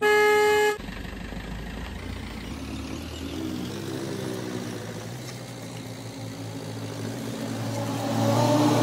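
Car engine running as the car drives, heard from inside the cabin, with a short car horn toot at the very start. The engine pitch rises briefly a few seconds in, and the engine grows louder near the end as the car pulls harder.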